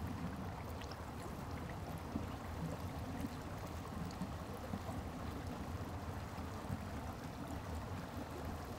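Shallow stream running steadily over rocks, a constant watery rush.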